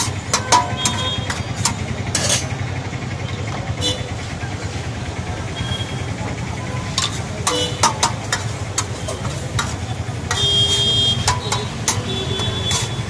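Steel spatula and spoon scraping and clinking against a large flat steel plate as samosa chaat is mashed and mixed, in irregular sharp clicks and scrapes. A steady low rumble of engines and street traffic runs underneath.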